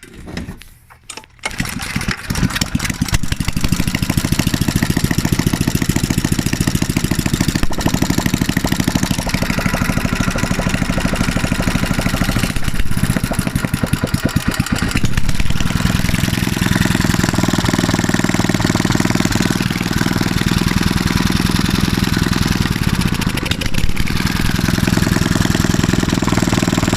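Mitsubishi 6 hp small single-cylinder engine catching about two seconds in and then running steadily with an even firing rhythm. It runs on a replacement BPR5ES spark plug, fitted because the old, longer plug was being struck by the piston, which had caused the knocking.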